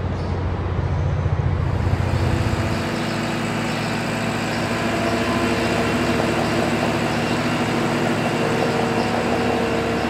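Farm machinery engine running steadily, with a deep low rumble that drops away about three seconds in.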